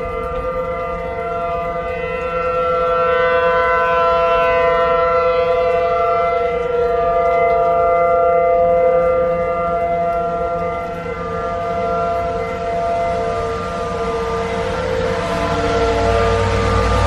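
Outdoor civil-defense warning siren sounding a steady tone for a severe weather warning, its level swelling and fading slowly as it sweeps around. A rushing noise builds near the end.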